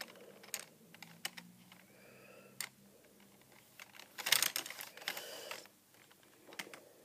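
Scattered light clicks and taps of a hand moving small toy pieces on a marble set, with a short burst of clattering about four seconds in.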